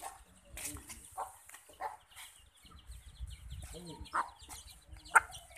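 Hen clucking to her brood in short low calls while the chicks peep in quick high chirps; a single sharp click a little past five seconds in is the loudest sound.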